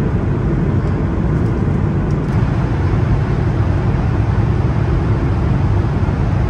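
Steady low rumble of cabin noise inside an Airbus A220-300 in flight: airflow over the fuselage and its Pratt & Whitney PW1500G geared turbofan engines.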